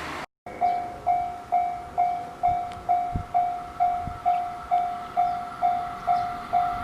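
Japanese railway level crossing's electronic warning bell ringing, a single-pitched ding repeating evenly a little over twice a second, each ding dying away.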